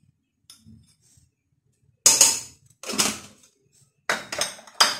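Glass spice jars being handled on a tiled kitchen counter: after a quiet start, four separate clattering knocks and clinks in the second half as a jar is put down and another picked up.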